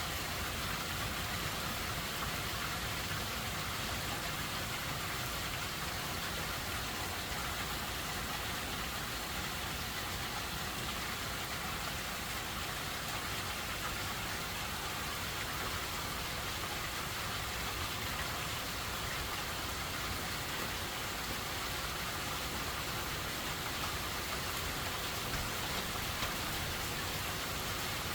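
Steady rain from Hurricane Helene falling without a break, an even hiss of rainfall.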